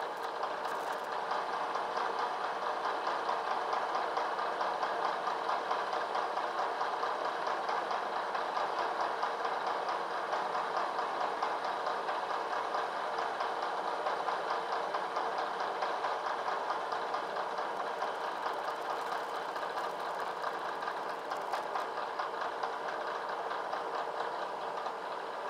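Vertical milling machine running, its end mill taking a light pass along a clamped part as the table feeds steadily. It makes a steady whir with a fine, rapid chatter from the cutter.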